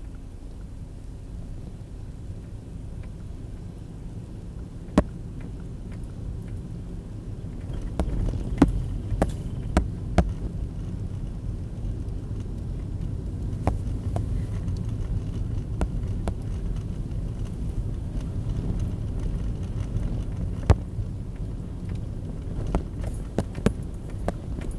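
Car being driven, heard from inside the cabin: a steady low rumble of engine and tyres that gets louder about eight seconds in, with scattered sharp clicks and knocks.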